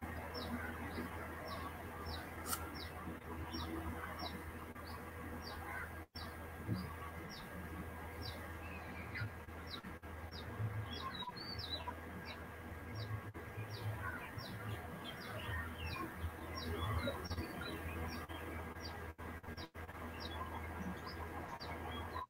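A small bird chirping over and over, short high chirps about twice a second, over a steady low hum.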